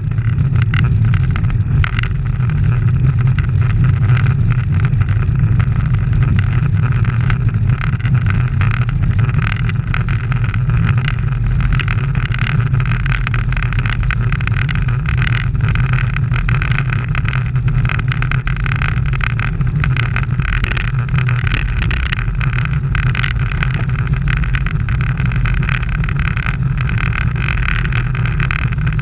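Steady rush of wind and tyre noise from a road bike rolling along an asphalt road at speed. Heavy low rumble from wind on the microphone runs under an even hiss.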